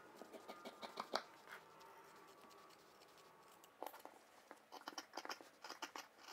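Scissors snipping through fabric to trim excess seam allowance. A few faint snips come in the first second or so, then a pause, then a run of quick snips over the last two and a half seconds.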